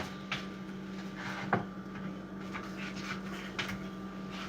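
Quiet room tone with a steady low hum and a few faint light clicks, the clearest about a second and a half in.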